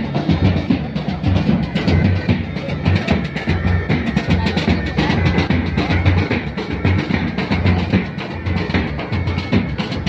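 Loud music with heavy, busy drumming: a pounding bass drum under rapid drum strokes.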